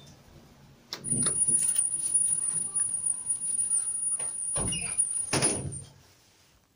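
Sliding lift car doors of a 2000 Irish Lift Services traction lift moving and shutting. There is a click about a second in, a thin steady high whine under the door noise, and two heavy thuds near the end as the doors close.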